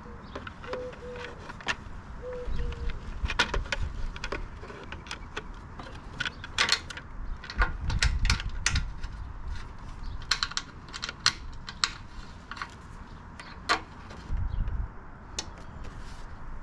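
Irregular plastic clicks and knocks of a TomTom Rider sat-nav being handled and fitted into its cradle on a RAM mount, with a few low thumps.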